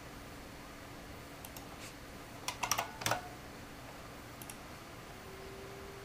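Keyboard and mouse clicks, a quick run of them about two and a half seconds in, as the fan speed is set in software, over the faint steady hum of the ASUS Radeon HD 7770 DirectCU's cooling fan. Near the end the hum steps up to a higher pitch as the fan goes from 40% to 50% speed, the point at which it becomes much more noticeable.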